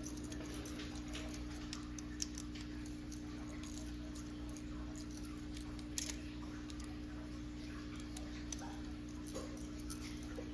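Scattered small ticks and clicks of a Babyliss FX trimmer being taken apart by hand, its blade, housing and screws being worked off, with one sharper click about six seconds in, over a steady low hum.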